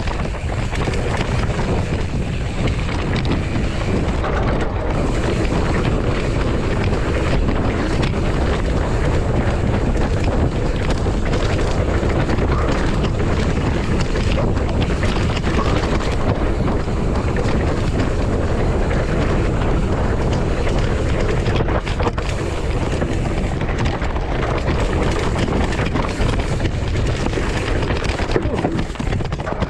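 Wind buffeting the microphone of a camera on a moving mountain bike or rider, a steady low rumble with scattered knocks and rattles from riding over rough ground.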